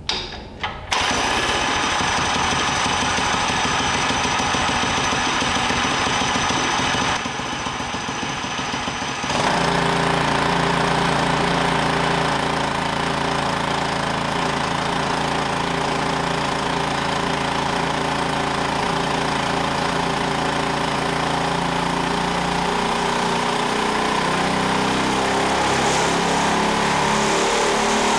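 Built Predator 224cc single-cylinder engine started about a second in, then running loud on an engine dyno. It eases off for a couple of seconds around seven seconds in, then runs steadily under the dyno's load with its speed climbing slowly.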